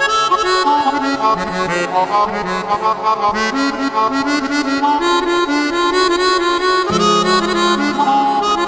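Melodica patch on a Roland Fantom synthesizer keyboard played live: a melody of short notes stepping up and down. A low note comes in and is held from about seven seconds in.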